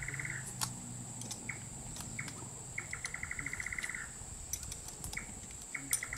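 A bird calling over and over: short single notes and rapid trills of about a second, three times, each a quick run of about twelve notes a second. Behind it runs a steady high-pitched insect drone.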